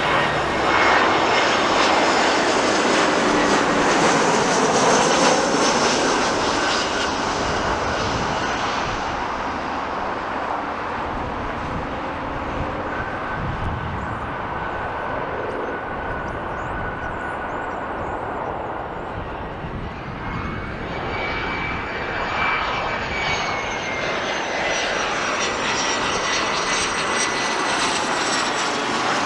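Jet airliner engines passing, a steady rush that is loudest in the first few seconds and then eases off. About twenty seconds in, a high engine whine rises slightly in pitch and holds as the sound builds again.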